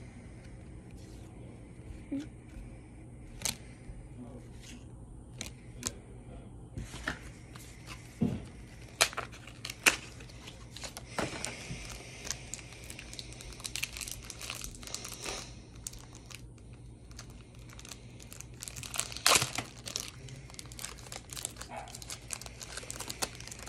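Foil wrapper of a Pokémon trading-card booster pack crinkling and tearing as it is opened and handled, with scattered sharp clicks and rustles.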